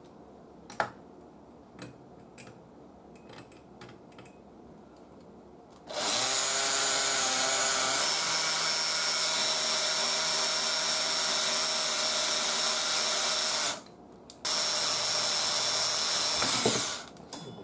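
A few light clicks of handling, then an electric drill boring a hole with a number 2 bit through a radio's band-switch shaft, a steady whine that rises a little in pitch about two seconds after it starts. It stops briefly and then runs again for a few more seconds.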